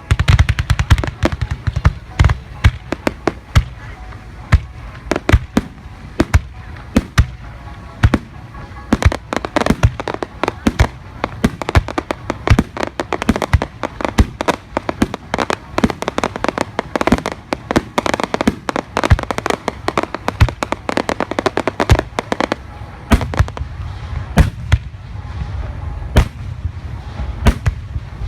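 Fireworks display: aerial shells bursting one after another with sharp bangs and crackling. The bursts come thicker and faster through the middle stretch, a rapid barrage, with a low booming rumble at the start and again near the end.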